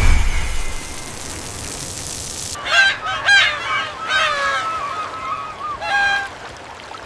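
A whooshing hiss fades away over the first couple of seconds. Then comes a run of high-pitched squawking calls with bending pitch, several in quick succession, ending a little before the end.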